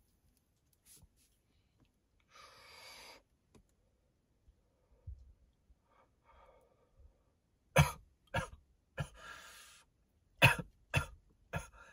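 A man breathes out a long breath of blunt smoke, then coughs hard in two bouts of about three coughs each, starting about eight and ten and a half seconds in. The coughing is brought on by inhaling the smoke.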